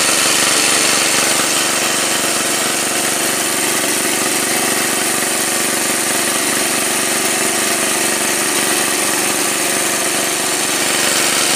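Small petrol engine of a portable water pump running steadily, over the steady hiss of rain.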